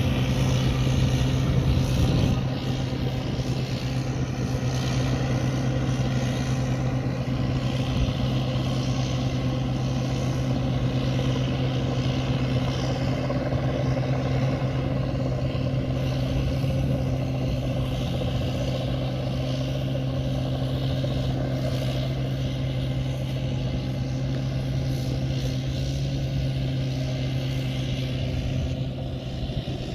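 Large rice combine harvester's engine and machinery running steadily, a constant low drone that eases slightly about two seconds in.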